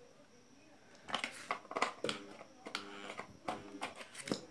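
Metal clicks and knocks from a small single-phase induction motor's rotor shaft and end housing being handled and turned by hand, starting about a second in, with a few short pitched sounds in the middle.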